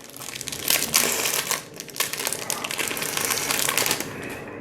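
Foil Yu-Gi-Oh booster pack wrapper crinkling and crackling as it is handled and torn open, a dense run of small crackles that eases off near the end.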